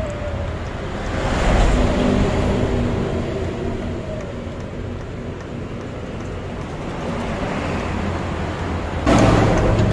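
Road traffic passing close by: a steady low rumble that swells about a second in, eases off, then gets suddenly louder near the end as another vehicle comes by.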